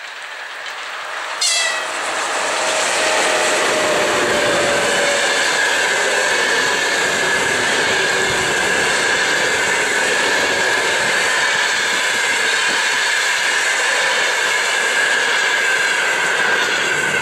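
Ruby-red EP1M electric locomotive and its passenger coaches passing close by: a sudden short sharp sound about a second and a half in, a tone that slides down in pitch as the locomotive goes past, then the coaches' wheels running on the rails with a steady high whine, fading near the end as the last coach clears.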